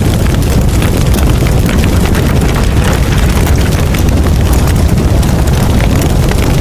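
Loud, steady, harsh rumbling noise with dense crackling all through it.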